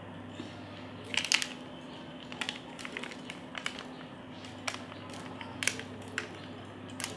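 Burning charcoal crackling in a stove, with irregular sharp pops and snaps and a louder cluster about a second in, over a steady low hum.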